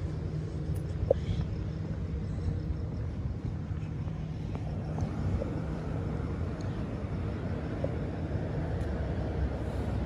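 Alstom C-series electric railcar standing at the platform, its onboard equipment humming steadily at a low pitch, with one short click about a second in.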